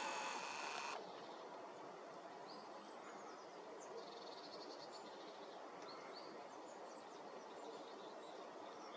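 A camera's zoom motor whirs steadily, then stops about a second in. Faint outdoor quiet follows, with scattered small bird chirps and a short high trill near the middle.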